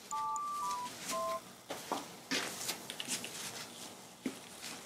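A short run of electronic beeps, two pure tones sounding together and stepping in pitch like telephone keypad tones, ending a little over a second in. After that there are only faint scattered taps and ticks.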